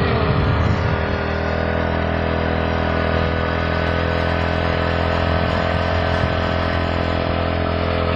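Junoon motorcycle engine running at a steady speed, its rear tyre driving a small water pump.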